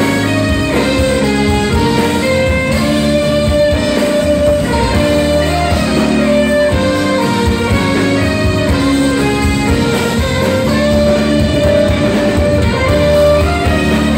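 Live jazz band playing: saxophones, electric guitar, keyboards and drum kit, with long held notes and chords at a steady loudness.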